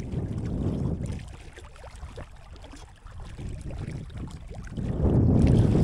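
Wind buffeting the microphone in low rumbling gusts; it eases for about two seconds, then gusts hard again near the end.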